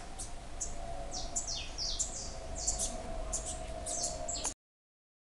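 Caged saffron finches (canário-da-terra) chirping: a rapid run of short, high calls, some sliding down in pitch, over a faint steady hum. The sound cuts off abruptly near the end.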